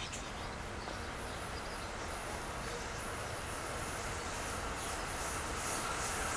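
Amtrak train hauled by an ACS-64 electric locomotive approaching on the rails, a steady rush of wheel and rail noise slowly growing louder.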